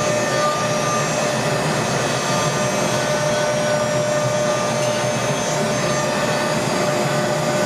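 CaMaster Stinger SR-48 CNC router cutting wood, the spindle running with a steady whine over the even rush of the dust-collection suction through its hose.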